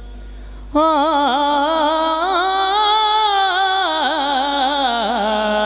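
A man's voice singing a naat, coming in suddenly about a second in with one long, ornamented phrase whose pitch wavers and turns.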